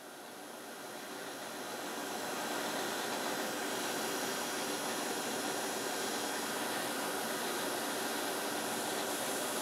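Bench grinder running with nothing against the wheel: a steady whirring hiss that grows louder over the first two seconds or so, then holds steady.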